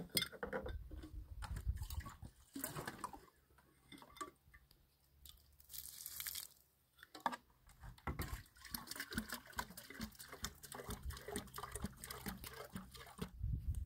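Water splashing onto gravel as a kettle is rinsed and tipped out, then, from a little past halfway, a steady pour of water from a plastic jerrycan into the kettle. A few knocks of the cans being handled near the start.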